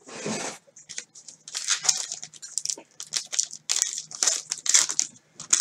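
Foil baseball-card pack wrappers crinkling and rustling in a string of irregular bursts as they are handled and pulled off the hands.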